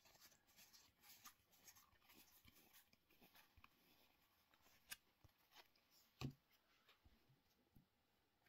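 Faint handling of trading cards, with quiet rustles and light ticks. A sharper click comes about five seconds in and a soft knock about a second later.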